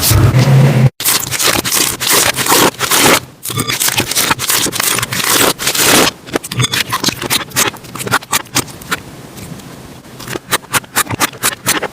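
Slime being handled, giving a dense run of crisp crackles and pops. There is a brief cut to silence about a second in, and the pops thin out after a quieter stretch near the end.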